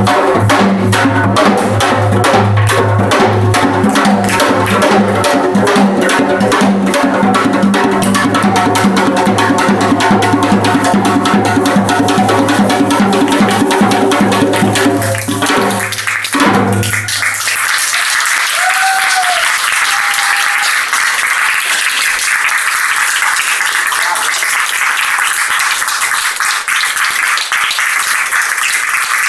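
Janggu, the Korean hourglass drum, played in a fast, dense solo with rapid stick strokes over a low booming head, stopping abruptly about two-thirds of the way through. Applause and clapping follow.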